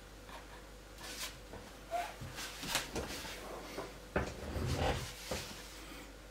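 Handling noises at a wooden jeweler's bench: a string of light clicks, scrapes and a few dull knocks as a length of thin fine silver wire is picked up and handled.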